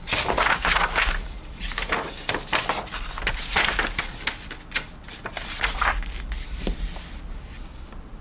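Paper rustling as a model kit's instruction booklet is opened, its pages turned and pressed flat by hand: a string of short rustles, the loudest about half a second in and again from about three and a half to six seconds in.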